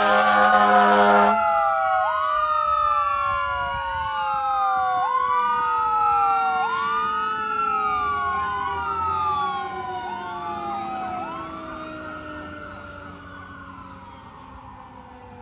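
Fire engine's air horn blasting until about a second in, over its sirens. Then one siren winds down in a long, slow fall while another cycles through repeated sweeps, each a quick rise and a slower fall. Both fade away steadily as the engine pulls away.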